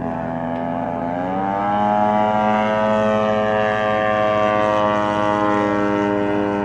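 DLE 55 single-cylinder two-stroke petrol engine and propeller of a large radio-controlled Tiger Moth biplane model in flight. Its revs rise about a second in, then hold steady.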